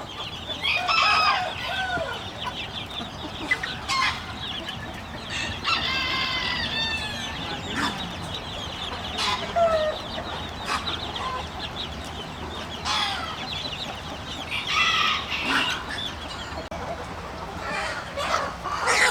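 Chickens clucking and squawking in short calls scattered through, with one longer drawn-out call about six seconds in, over a steady low background hum.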